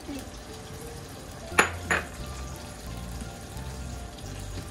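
Two quick clinks of kitchenware, about a third of a second apart, a little past a second and a half in, over a low steady hum.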